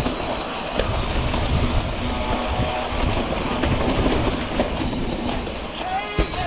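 Electric mountain bike descending rough dirt singletrack: a constant rumble and rattle of the bike and its tyres over the trail. Near the end a brief wavering pitched tone comes in over the noise.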